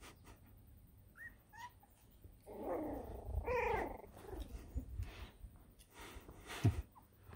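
Border Terrier puppies vocalising: two short high squeaks about a second in, then a longer run of yapping cries around the middle, and a short bump near the end.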